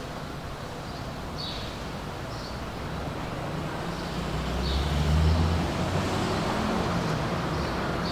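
City street traffic: a steady hum of cars, with a vehicle's low rumble swelling as it passes about five seconds in.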